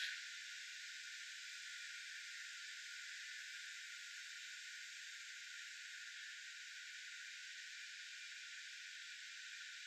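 Faint, steady, high-pitched outdoor background hiss with no distinct calls, and a short click right at the start.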